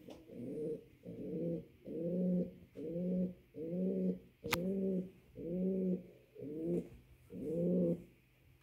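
Male pouter pigeon cooing to call his hen for mating: about nine short coos in a steady series, roughly one a second. A single sharp click falls about halfway through.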